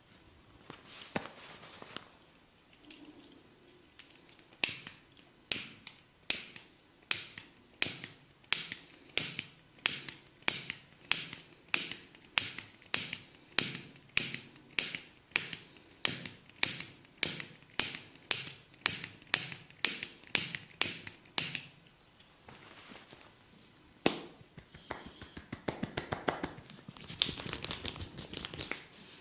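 Sharp, evenly spaced slapping cracks from a barber's percussive massage, about two a second. They start about five seconds in and stop around twenty-one seconds, with rustling handling sounds near the end.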